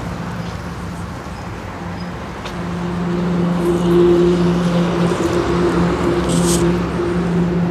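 A steady engine hum over traffic noise, getting louder about three seconds in.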